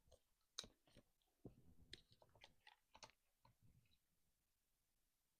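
A few faint plastic clicks and light rustling from a compact hair dryer and its attachments being handled.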